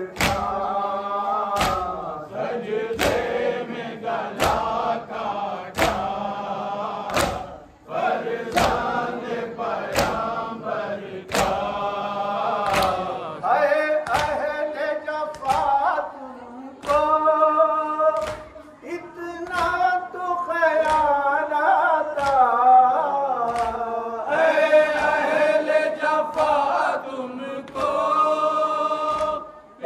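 A group of men chanting a nauha, a Shia Muharram lament, with changing melody and no instruments, over sharp rhythmic matam beats from mourners striking their chests together, about three beats every two seconds; the beats drop away about halfway through while the chanting goes on.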